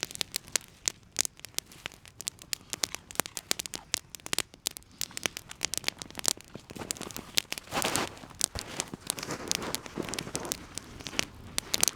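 Campfire crackling, with dense, irregular snaps and pops throughout and a louder rustling stretch about eight seconds in.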